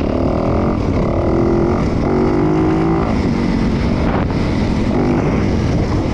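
Dirt bike engine running under way, its pitch rising and falling as the throttle is opened and eased off.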